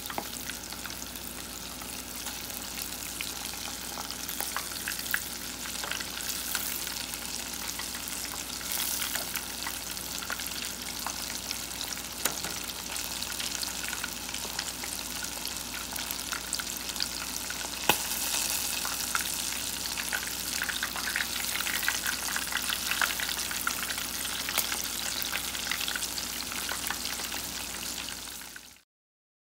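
Breaded perch fillets deep-frying in hot lard, the fat sizzling and crackling steadily with many tiny pops. The sizzle grows a little louder about two-thirds of the way in and stops abruptly just before the end.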